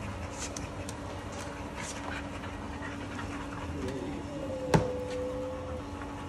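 A pack of dogs begging for food, panting, with one dog giving a thin whine in the second half. A single sharp click about two-thirds of the way through, over a steady low hum.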